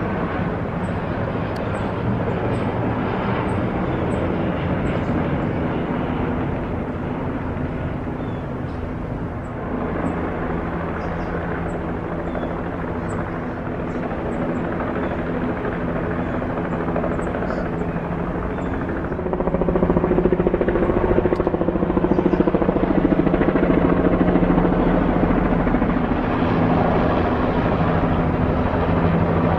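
Helicopter rotor and engine noise overhead: a steady drone that gets louder about two-thirds of the way through.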